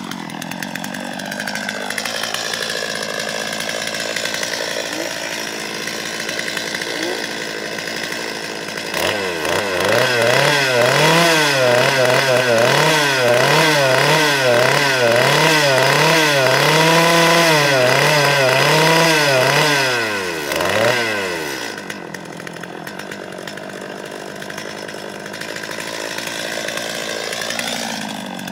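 Small two-stroke chainsaw engine idling, then revved up and down over and over, about once a second, for roughly twelve seconds, then settling back to idle and stopping at the very end.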